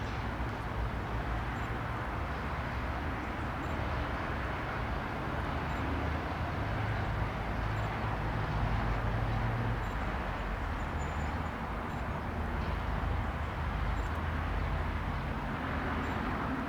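Twin PT6A turboprop engines of a Beech B200C Super King Air running steadily: a low hum under a broad rushing noise that swells slightly now and then.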